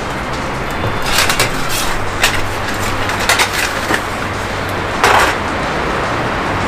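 Metal clinks and rustles of a segmented metal windscreen being unfolded and set around a small camping stove, in several short bursts of handling noise. Steady storm wind runs underneath.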